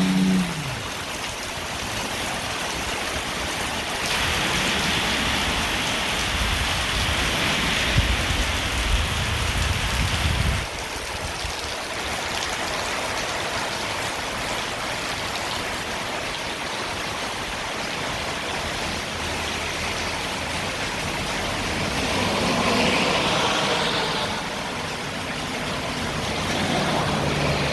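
Heavy rain falling steadily, with a louder spell from about four to ten seconds in that cuts off suddenly. A faint low hum comes in near the end.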